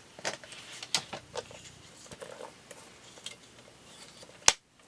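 Paper and craft supplies being handled on a desk: light rustling and small scattered clicks and taps, with one sharp click about four and a half seconds in.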